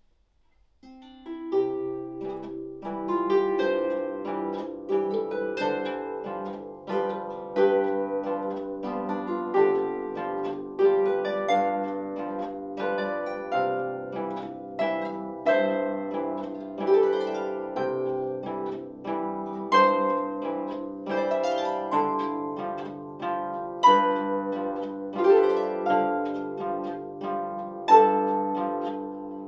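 Solo lever harp played by hand: a waltz of plucked melody notes over a bass line, ringing on, with a regular beat of accented notes. The playing starts about a second in.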